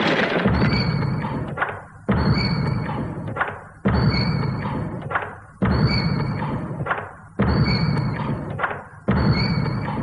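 Heavy mechanical pounding of a factory stamping machine, about six strokes here, one roughly every second and three-quarters; each starts suddenly with a thump and dies away, with a high ring on top.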